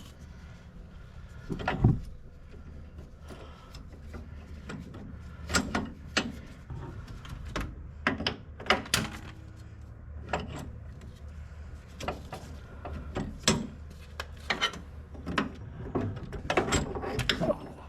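Irregular knocks and clanks from tools and rear suspension parts being handled and fitted under a car, over a steady low hum.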